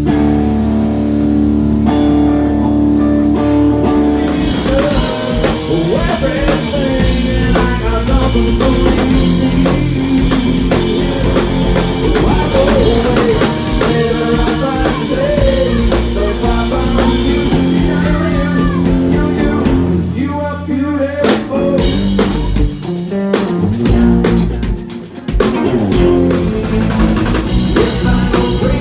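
Live rock band playing: drum kit with acoustic and electric guitars, loud and recorded on a mobile phone. The low end cuts out briefly a couple of times about two-thirds through.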